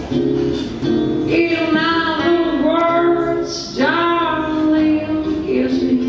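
A woman singing with guitar accompaniment; her voice slides up into a note about four seconds in.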